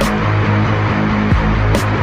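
Loud electronic background music with a heavy, sweeping bass and regular cymbal-like hits.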